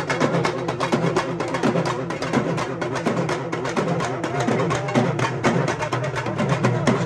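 Percussion-led music: a fast, steady run of drum strokes with a pitched melody over it.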